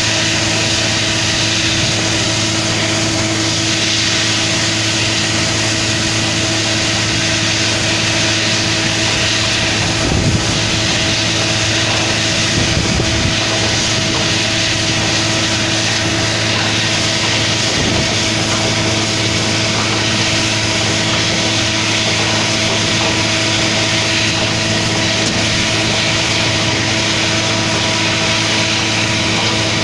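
Truck-mounted water-well drilling rig running steadily, its engine hum under a continuous hiss of muddy water spraying out around the drill pipe at the wellhead. A few brief low knocks come partway through.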